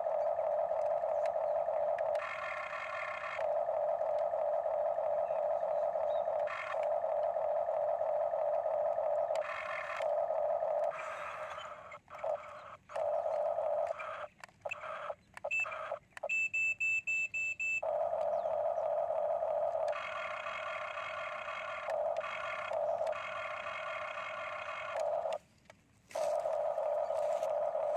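Huina remote-control toy excavator's small electric motors whining steadily while the boom and arm move. The whine stops and starts again every few seconds, and just past the middle it breaks up into choppy stutters with a run of rapid high beeps.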